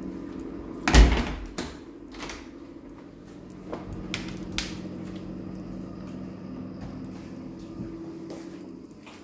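A door bangs shut about a second in, followed by a few lighter knocks and clicks as doors are handled, over a steady low hum.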